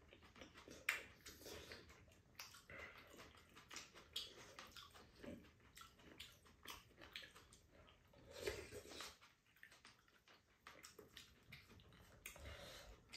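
Faint eating sounds of two people having rice cake soup: slurping and chewing, with light clicks of wooden spoons against ceramic bowls, the sharpest click about a second in.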